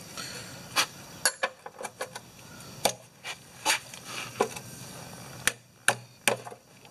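Ratchet and socket clicking in short, irregular strokes as the drain plug is loosened on an engine's oil pan: a dozen or so sharp metal clicks.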